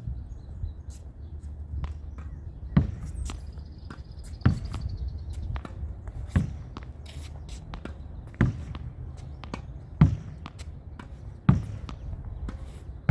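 Tennis ball rallied against a practice wall from close range: a sharp pock of racket and ball striking the wall about every one and a half to two seconds, with fainter bounces and shuffling steps in between.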